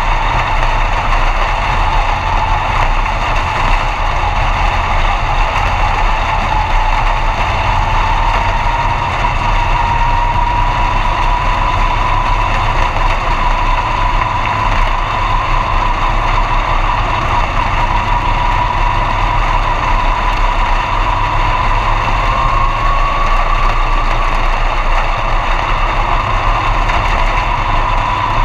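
B-Mod dirt-track race car's V8 engine running steadily at low speed, heard from inside the cockpit, with a high whine that slowly rises in pitch.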